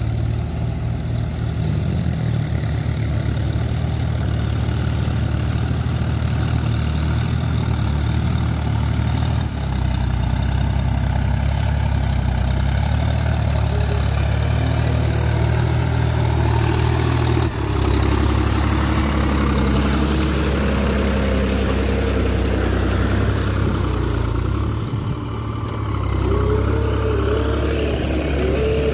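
John Deere farm tractor's diesel engine running steadily under load as it pulls steel cage wheels through a wet paddy field, growing louder as the tractor comes closer.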